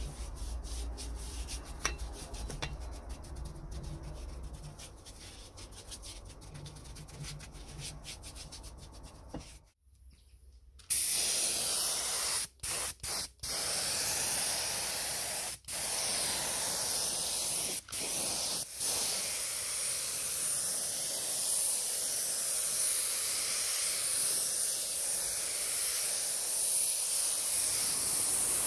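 A paintbrush scrubbing a dark coating onto a cast-iron mangle wheel in quick, rapid strokes. After a short pause about ten seconds in, a compressed-air spray gun starts hissing steadily as it sprays paint onto the cast-iron frame, stopping briefly a few times.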